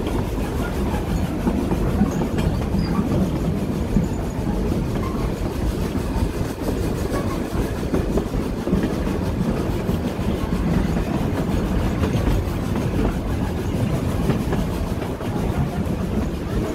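Narrow-gauge heritage railway carriage running along the track: a steady rumble of wheels on rails, with small scattered clicks and knocks.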